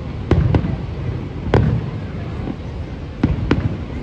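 Aerial fireworks shells bursting: five sharp bangs, two quick pairs about a quarter-second apart and one louder single bang between them, over a steady low rumble of the display.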